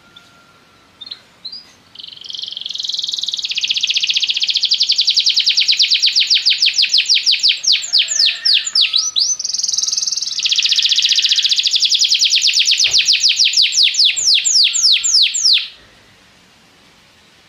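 Domestic canary singing: a few short notes, then a long song of very fast rolling trills, breaking briefly about halfway and stopping suddenly near the end.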